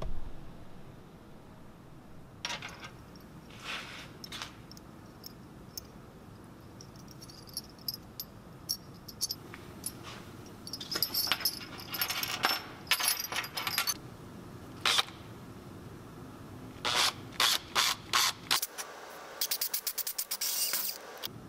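Hand work on metal parts at a workbench: scattered clinks, taps and short scrapes of tools and cast bronze skate truck parts. Near the end comes a quick run of fine clicks.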